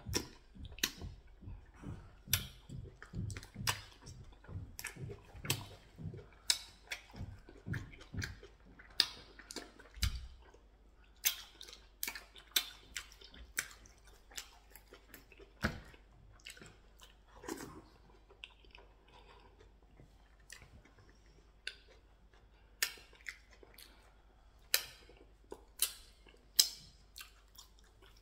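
Close-miked chewing and eating of pounded yam with ogbono soup and stew meat: irregular sharp mouth smacks and clicks, about one or two a second, thinning out in the middle of the stretch and picking up again near the end.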